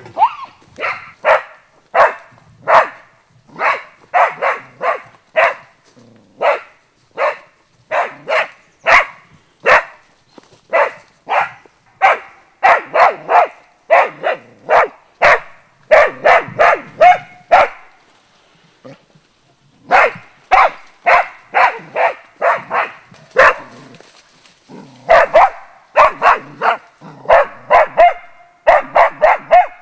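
Young springer spaniel barking steadily at a wild boar, holding it at bay in dense cover: about two barks a second, with a break of a couple of seconds past the middle.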